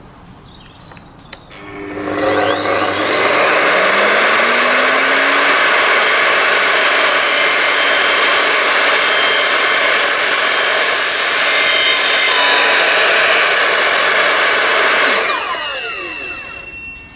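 Evolution F255SMS sliding mitre saw's 1600 W motor starting about two seconds in and whining up to speed. Its 255 mm multi-material blade runs through a cut in plastic piping, then winds down quickly near the end as the blade brake stops it.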